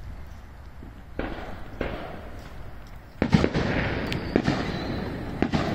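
Fireworks going off: scattered sharp bangs and pops, then a louder, rapid run of bangs starting about three seconds in.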